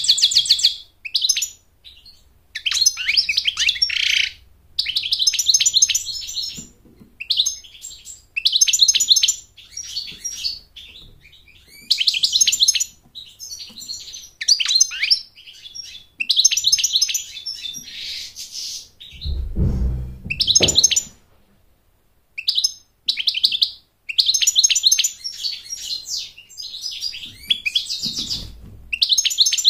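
European goldfinch singing: repeated phrases of rapid, high twittering notes and trills, each a second or two long with short pauses between. A brief low thump sounds about two-thirds of the way through.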